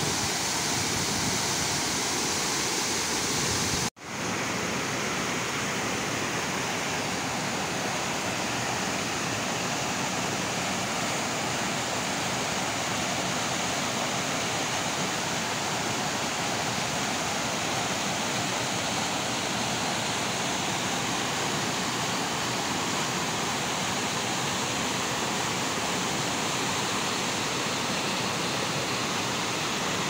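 Waterfall pouring into a rocky pool: a steady, dense rush of falling water that cuts out for an instant about four seconds in.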